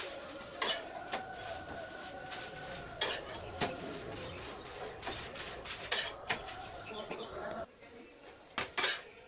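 Kitchen utensils clinking and clattering on a pan and countertop, a number of separate sharp knocks, over a steady kitchen hum that stops near the end.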